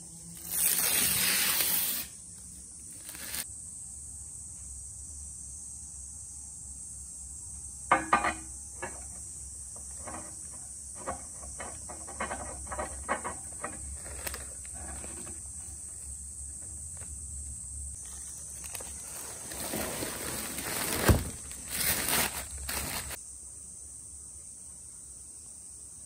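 Handling noises from unpacking a table from its cardboard box: a brief scraping rustle of cardboard near the start, scattered taps and clicks in the middle, then more rustling with one sharp knock about twenty seconds in, over a steady high hiss.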